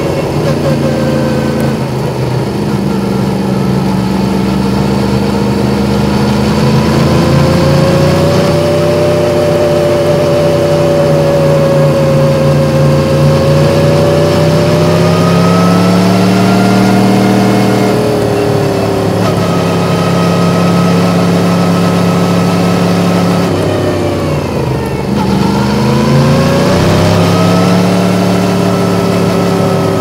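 Yamaha MT-10's crossplane inline-four engine running under way, its pitch rising and falling slowly with the throttle. About 24 seconds in it drops sharply as the throttle closes, then climbs again.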